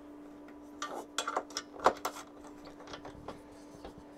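Metal clinks and rattles of a steel TV-mount bracket being handled and fitted onto the back of a television, a quick cluster of sharp knocks starting about a second in, loudest just before the two-second mark, then a few light ticks.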